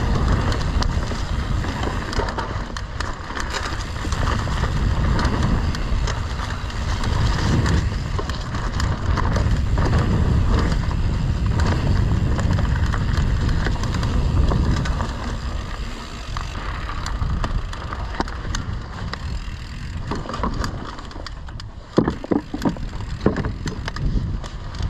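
Fezzari Cascade Peak mountain bike ridden along a dirt trail: a steady low rumble of wind on the microphone over tyre and frame noise, with a cluster of sharp knocks and rattles near the end.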